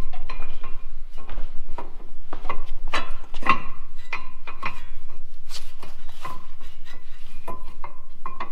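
Metal clinks and scrapes as a brake caliper is fitted over a new brake rotor: many sharp, irregular knocks, each ringing briefly.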